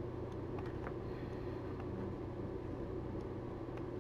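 Steady low hum and hiss of background noise, with a few faint clicks of a computer mouse picking a tool from an on-screen menu.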